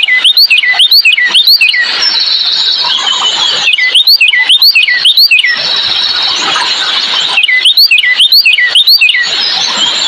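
A songbird singing three loud phrases, each a quick run of about six slurred whistled notes that sweep up and then drop. A steady background chorus of other birds chirping runs underneath.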